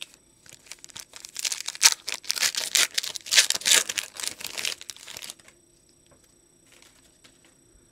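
Foil wrapper of a Panini Absolute Football card pack being torn open and crinkled by hand: a few seconds of crackling that stops about two-thirds of the way through.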